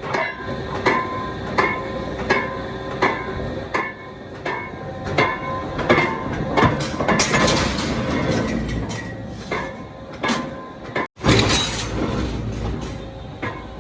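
Hammer blows on metal at a steady pace, about three every two seconds, each leaving a short metallic ring.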